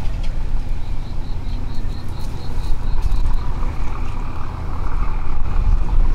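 Steady low outdoor rumble with an insect chirping in short high pulses, about four a second, from about a second in until past the middle.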